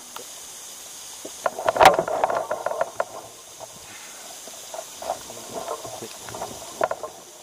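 Small water sounds around a float tube over a steady hiss, with a cluster of clicks and one sharp knock about two seconds in, and a few fainter ticks later.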